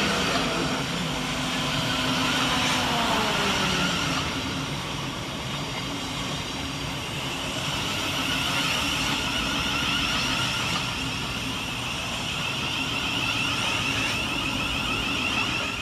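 Thameslink Class 700 electric multiple unit arriving, its motor whine falling in pitch about two to four seconds in as it brakes, over steady wheel and rail noise.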